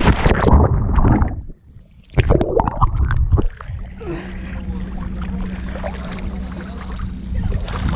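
Sea water splashing and sloshing around a waterproof action camera as it dips in and out of the shallows, with a brief muffled lull about a second and a half in. After about four seconds it settles into a steadier, quieter wash of water.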